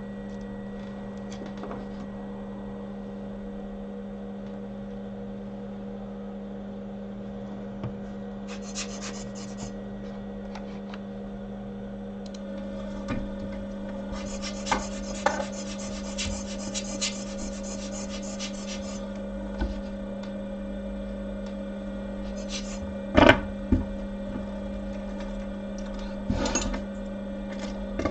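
Steady electrical hum of bench equipment, with more hum tones joining about twelve seconds in. Two spells of scraping and rubbing and a few sharp clicks and taps come from hand tools working on small parts at the bench.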